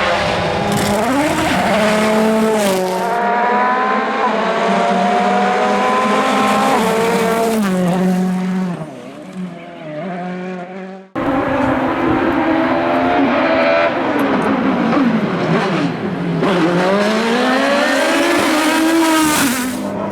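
Rally car engines at full throttle: the revs climb steeply and step down through several gear changes as a car passes and fades. After an abrupt cut a little past halfway, another car's engine drops in pitch as it slows, then revs climb hard again as it accelerates away.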